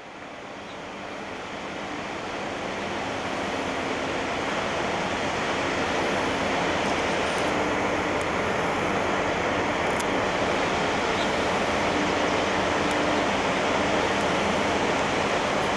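Tanker ship moving into a canal lock: a steady rushing of water and machinery with a faint low hum that comes and goes, fading in over the first few seconds.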